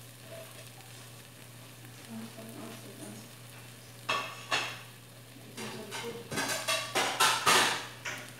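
Banana-oat pancake batter frying in a nonstick pan: sizzling that breaks into short spurts about four seconds in and comes thick and loudest near the end, over a steady low hum.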